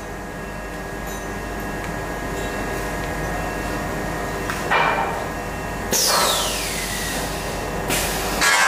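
Automatic tube-loading machinery of a laser tube cutter running with a steady mechanical hum. Several clanks come in the second half, one of them followed by a hiss that falls in pitch.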